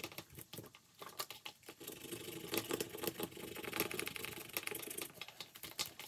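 Scratching off a scratch-off spot on a paper savings-challenge page with a pointed tool: rapid dry scratching and small clicks. Later the card page is flipped over on the ring binder with a light rustle.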